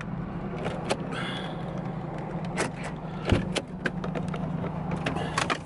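Truck engine running steadily, heard from inside the cab, with a handful of sharp, irregular clicks and knocks, the loudest about three seconds in.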